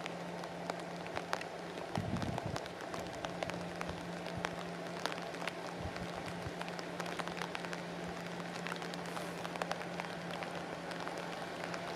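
Heavy rain falling, with many close drops ticking sharply over an even hiss. A faint steady low hum runs underneath.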